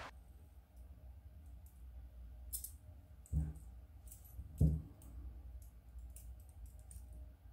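Light metallic clicks and chain jingles as the bent wire loops of a metal wire puzzle and its small chain are handled and slid against each other. Two dull thumps, the loudest sounds, come near the middle, a little over a second apart.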